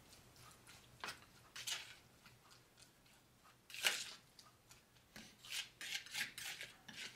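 Small palette knife stirring and scraping a stiff, damp cotton-fiber scenery mix in a plastic tub: quiet, uneven scrapes, the loudest about four seconds in, then a quicker run of strokes near the end.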